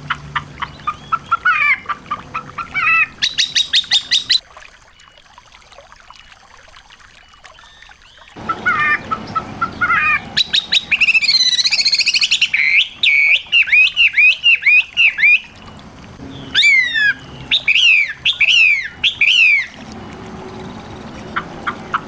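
Small songbirds singing in loud bursts of rapid chirps and trills, then a run of sharp, quickly repeated notes that sweep steeply downward, with a quieter pause between phrases about five seconds in.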